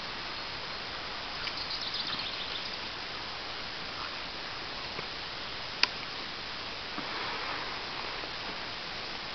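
Faint rustling and scuffling in dry leaves as two dogs tug at a stick between them, over a steady hiss, with one sharp click partway through.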